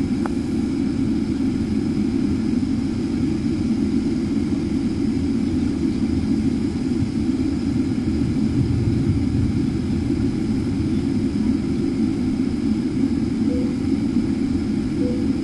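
Steady cabin noise inside a taxiing jet airliner: an even, unchanging low rumble from the engines.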